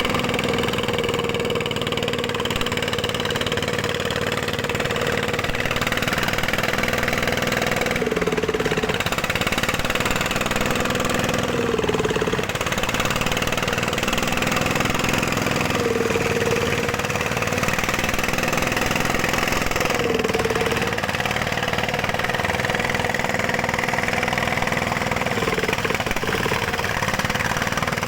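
Dongfeng ('dompeng') single-cylinder diesel engine running steadily, its pitch sagging briefly four times as the load changes.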